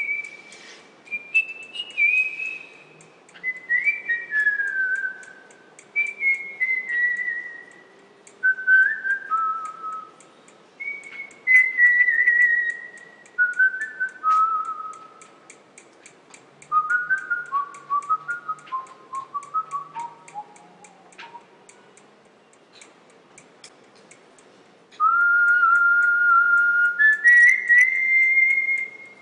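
A person whistling a slow tune: pure held notes that step downward in phrases, ending on a longer, louder sustained passage. A faint regular ticking runs behind it.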